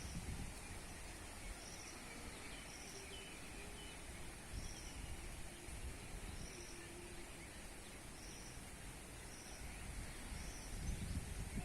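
Forest ambience with wind rumbling on the microphone, growing stronger near the end. A short high chirp repeats roughly once a second, with a few faint lower calls in between.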